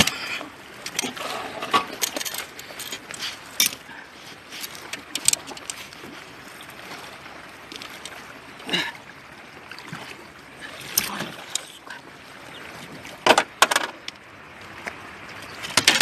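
Water lapping and splashing against the side of a small aluminium boat, with scattered sharp knocks and clicks from a man leaning over the gunwale and hauling fishing line in by hand.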